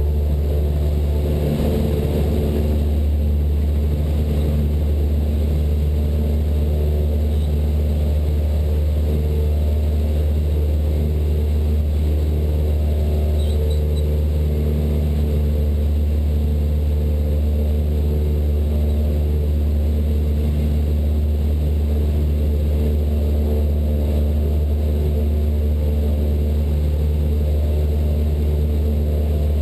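Cessna 172 Skyhawk's piston engine and propeller running steadily at takeoff power during the climb-out just after rotation: an even, unchanging drone.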